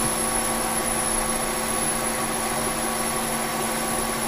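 K&T 2HL milling machine set up as a lathe, running steadily with a constant hum while a carbide insert takes a facing cut on a chuck mounting plate.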